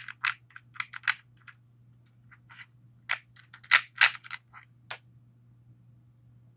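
Hands unscrewing a small stubby SMA antenna from a plastic Meshtastic radio case: a scatter of small clicks and taps of fingers, plastic and the threaded connector. The two loudest come about four seconds in.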